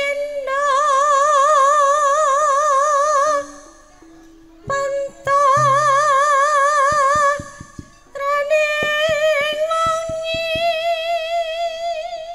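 A female singer holds long, high notes with wide vibrato in three phrases, over quiet campursari band accompaniment. A few sharp drum strokes fall in the middle.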